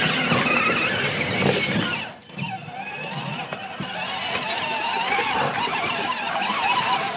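A 12V electric ride-on jeep's wheel motors whining as it drives over dirt. The whine drops out briefly about two seconds in, then picks up again and rises in pitch.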